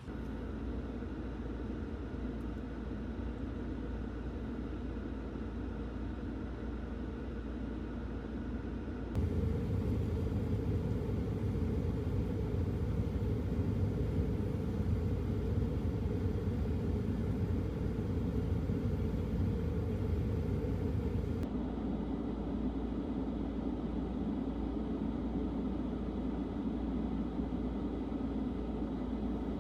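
Steady low rumble of vehicle noise, its character changing abruptly at cuts about 9 and 21 seconds in.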